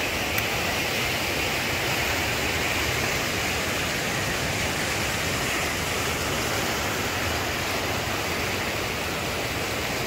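River water rushing fast over rocky rapids: a steady, even roar of white water.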